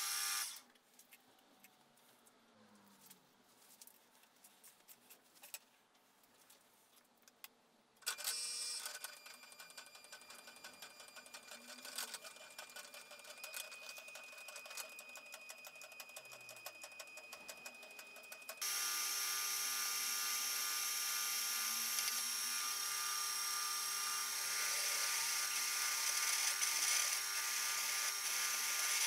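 Milling machine running with a steady whine of many tones while a twist drill bores into a metal plate. The sound falls almost silent shortly after the start, comes back about eight seconds in, and grows louder and steadier about two-thirds of the way through.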